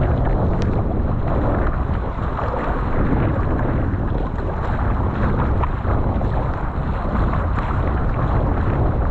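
Strong wind buffeting the microphone over the rush of water past a surfski paddled downwind in 25–35 knot wind; a steady, loud rumble of noise.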